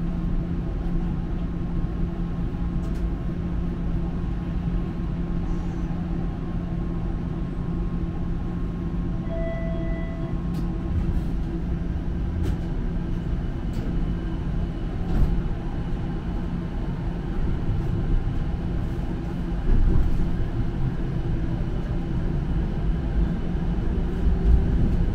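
Streetcar heard from inside the car as it runs along the rails: a steady low rumble with a constant hum from its drive, a few clicks and knocks, and a short faint beep about ten seconds in.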